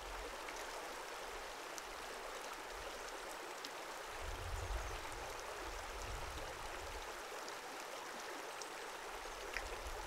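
Steady rush of a creek flowing.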